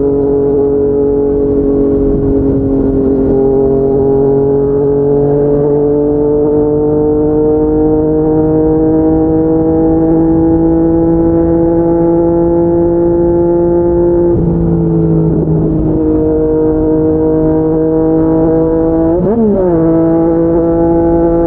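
Yamaha MT-09 inline three-cylinder engine heard from on board, running through an aftermarket slip-on exhaust under steady throttle. Its pitch climbs slowly as the bike gains speed, breaks briefly about two-thirds of the way in and settles slightly lower, then dips and recovers quickly near the end.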